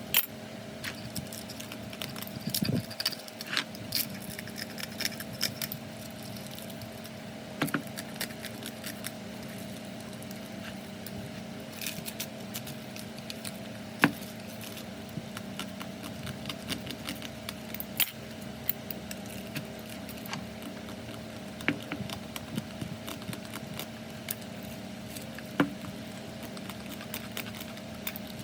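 Light metallic clinks and taps as small metal parts and hand tools are handled, scattered irregularly over a steady low hum.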